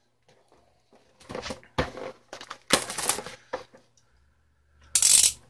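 Packaging of a boxed edition being opened and handled by hand: irregular bursts of rustling and scraping, the loudest near the end.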